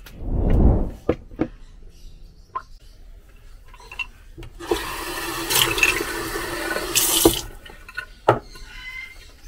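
Kitchen faucet running into a stainless steel sink for about three seconds while paintbrushes are rinsed, starting and stopping abruptly. Before it, a low muffled bump and a few sharp knocks from brushes being handled, and one more knock near the end.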